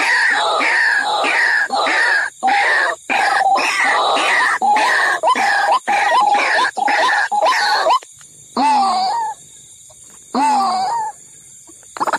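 White-breasted waterhen calls: a fast run of repeated harsh croaking notes, about three a second, that breaks off about eight seconds in, followed by two single drawn-out calls.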